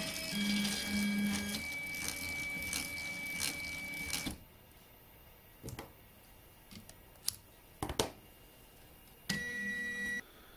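Motorized harness tape-winding machine running, its rotating ring wrapping tape around a wire and corrugated tube with a steady whine, stopping about four seconds in. A few sharp clicks follow, then the machine runs again briefly near the end.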